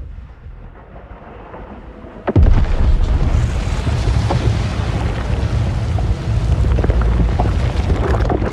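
Film-style giant monster sound effect: a low rumble, then about two seconds in a sudden loud, deep rumbling blast that carries on without letting up.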